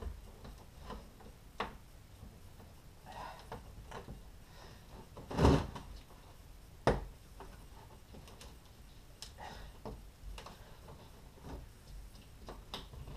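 Scattered plastic clicks and knocks as fuel line quick-connect clips and connectors are worked onto a fuel pump module on a dropped fuel tank. The loudest is a knock about five and a half seconds in, followed by a sharp click about a second later.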